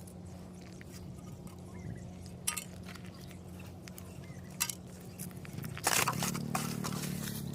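Small hard clicks and scrapes from handling and working on a broken phone, with a louder, denser stretch of crunching and scraping about six seconds in, over a low steady hum.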